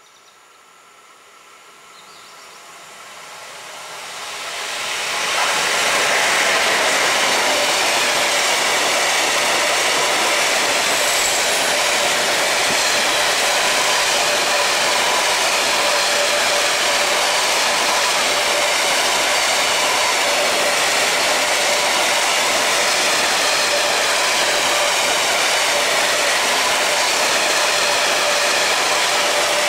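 Freight train of tank wagons approaching and passing close at speed. The rolling noise of wheels on rail grows louder over the first five seconds or so, then stays loud and steady as the tank cars roll by.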